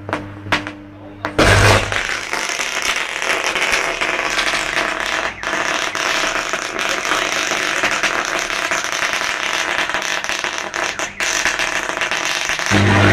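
A high-voltage underground cable arcing where an excavator has dug into it: a loud, continuous crackling and sputtering electrical arc that bursts in about a second in over a low hum and drops back to the hum just before the end.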